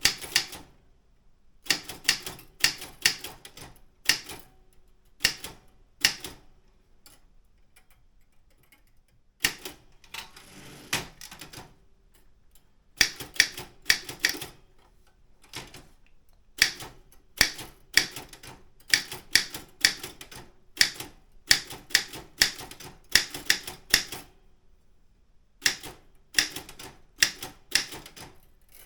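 Keys and typebars of a Daro Optima M16 manual typewriter striking in quick runs of clacks, broken by short pauses between words and lines.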